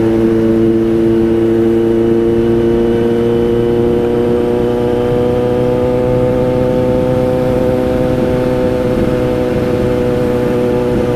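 Kawasaki Z900's inline-four motorcycle engine with a Racefit aftermarket exhaust, running steadily under way, its note rising slowly and evenly as the bike gently picks up speed.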